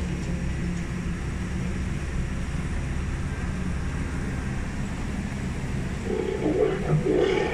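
Safari tram running: a steady low drone of the vehicle in motion. A louder, wavering sound joins about six seconds in.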